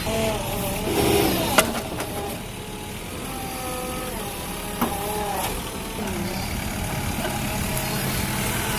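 Diesel engine of a JCB backhoe loader running under work, with wavering whining tones and two sharp knocks, one about a second and a half in and one near the middle.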